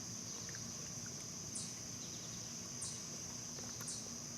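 Steady high-pitched drone of a late-summer insect chorus, with a few short, very high chirps spaced about a second apart.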